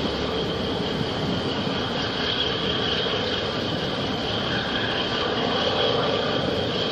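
Harbour tugboat's diesel engines running under load as it pushes against a large container ship's hull: a steady rumble with a steady high whine above it.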